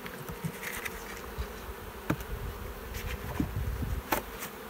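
Honeybee swarm buzzing steadily around an open hive box, with a few sharp clicks about two, three and four seconds in.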